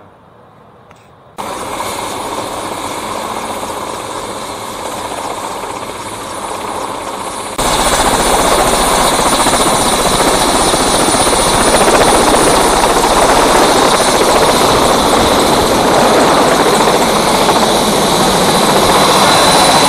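Helicopter running: a loud, steady rush of engine and rotor noise with a thin, steady high turbine whine over it. It starts abruptly about a second and a half in and gets louder about seven and a half seconds in.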